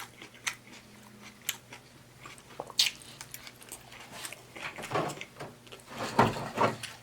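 Close-up chewing and biting of a taco salad: lettuce and baked tortilla shell crunching, with scattered sharp mouth clicks and louder, wetter chewing bouts around five and six seconds in.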